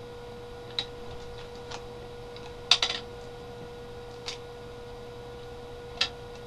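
Light plastic clicks and taps of a Transformers toy's missile launcher being handled and loaded: a handful of scattered clicks, with a quick cluster about three seconds in. A faint steady hum runs underneath.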